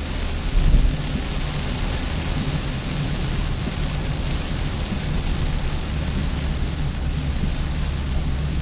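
Rain on a moving car, heard from inside the cabin through a dashcam's microphone: a steady hiss of rain over the low rumble of the car driving, with one louder low thump about a second in.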